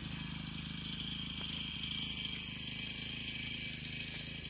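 A small engine running steadily, with a steady high insect drone over it.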